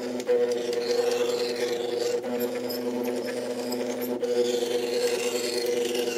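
Two motors turning the knobs of an Arduino-controlled Etch-A-Sketch through belts, whining at a steady pitch while it draws a square spiral. The pitch switches between a lower and a higher tone about every two seconds, three times in all, as the drive passes from one knob to the other between horizontal and vertical strokes.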